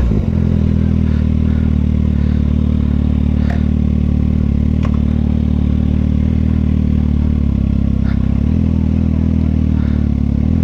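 Kawasaki ZX-6R's inline-four engine running steadily at low revs.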